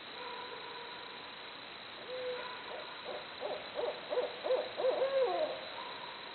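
Barred owl hooting: a single hoot, then a quickening run of hoots that ends in a long hoot sliding down in pitch.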